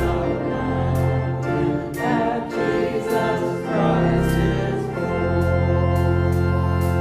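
Voices singing a hymn with pipe or electronic organ accompaniment, settling about five seconds in onto a long held final chord with a strong organ bass.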